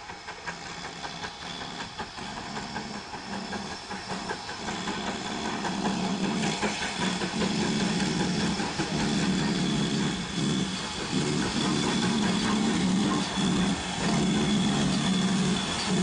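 GWR 5205-class 2-8-0 tank locomotive no. 5224, in steam, approaching with a train and growing louder as it nears, with an uneven rhythmic pulsing, rapid knocking and a steady high-pitched tone over it. This is the strange noise 5224 made in steam, for which the owner had no explanation.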